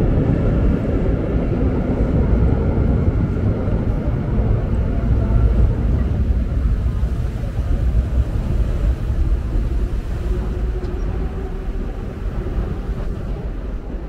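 Loud low rumble of a passing vehicle, easing off over the last few seconds.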